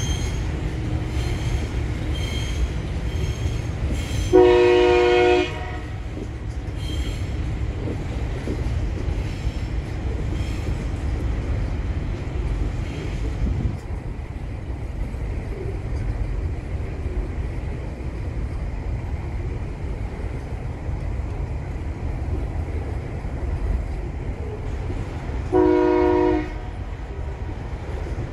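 Freight train's container wagons rolling past with a steady low rumble. Twice, about twenty seconds apart, a train horn sounds a blast of about a second, louder than the rumble.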